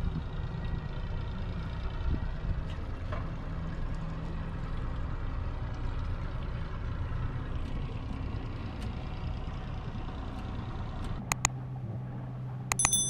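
Mercury 200 hp V6 outboard running steadily under way, a low steady drone. Near the end come a couple of sharp clicks and a short high beep.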